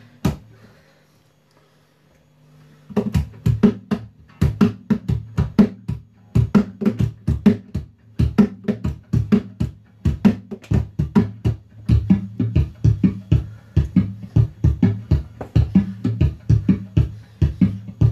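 Acoustic guitar strummed in a steady rhythm of sharp, percussive strokes. It starts about three seconds in, after a short stroke at the very beginning and a brief pause.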